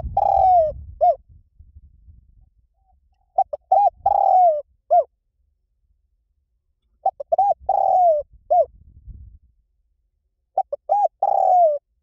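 Spotted dove cooing: a phrase of a few short coos, a long falling coo and a short final coo, repeated about every three and a half seconds, four times.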